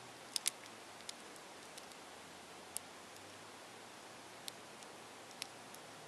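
Maru Nano 15 mm 3x3 cube's tiny plastic layers clicking as they are turned by the fingertips: a few sparse, sharp clicks, two close together about half a second in, over a steady hiss.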